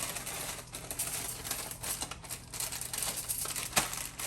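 Packaging crinkling and rustling as it is handled while cheese slices are laid on a sandwich, with a sharp click a little before the end.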